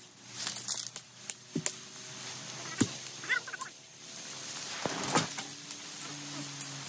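Handling noise around a camping tent: a handful of separate sharp knocks and taps, about five over several seconds, over low rustling.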